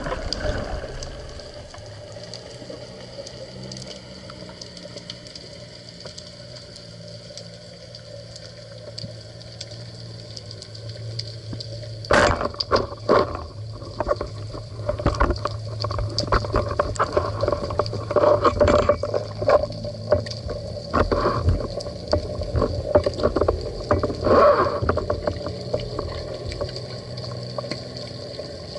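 Underwater sound picked up through a camera housing: a steady low hum at first, then, from about twelve seconds in, a run of irregular knocks, clicks and gurgling bubble sounds.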